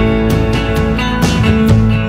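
Background music: a guitar-led song with strummed chords and a steady beat.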